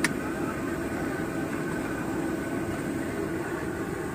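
Steady low rumbling background noise at a street food stall, with a sharp click at the very start.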